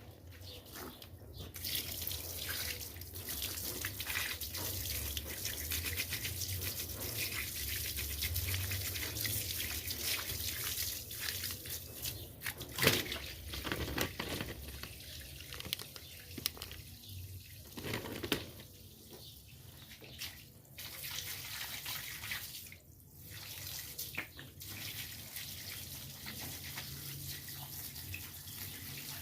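Running water splashing over the opened gearbox of a washing machine as it is rinsed, with a few sharp knocks, the loudest about thirteen seconds in.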